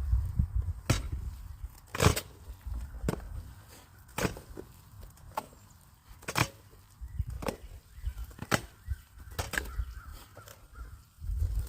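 A hand tool striking repeatedly at a steady pace of about one sharp stroke a second, with low scraping rumble between the strokes.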